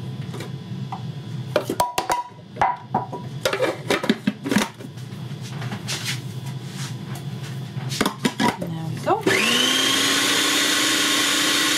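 Knocks and clatter of kitchen things being handled. About nine seconds in, an electric blender switches on: its motor whine rises quickly in pitch as it spins up, then runs steadily and loudly.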